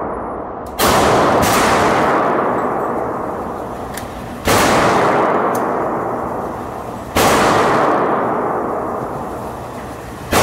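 Glock 32 Gen 4 pistol converted to .40 S&W with a factory Glock 23 barrel, firing slow aimed single shots about three seconds apart. There are three shots, and a fourth right at the end, each ringing on in the echo of the indoor range.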